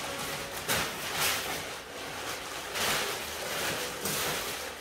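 Torn Christmas wrapping paper being crumpled and gathered up, rustling in several uneven swells.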